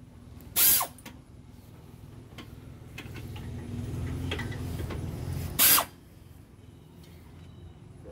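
Two short bursts of a power tool, about five seconds apart, during car suspension work.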